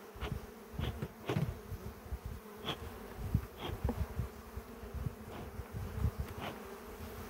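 Honeybees buzzing around an opened hive: a steady hum, with a few light knocks and clicks scattered through it.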